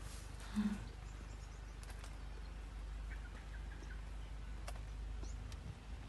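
Quiet outdoor garden ambience: a steady low rumble with a few soft clicks and faint bird chirps.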